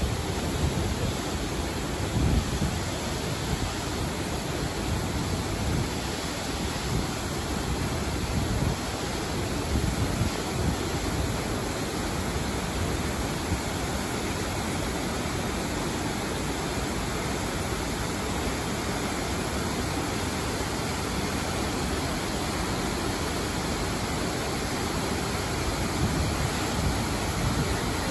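Steady, even rush of water falling over an artificial waterfall into a shallow urban stream, with low gusts of wind on the microphone now and then.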